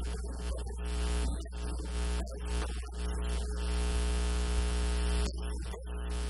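A loud, steady low electrical hum on the recording, with a man's voice speaking in broken phrases over it and one longer held sound near the middle.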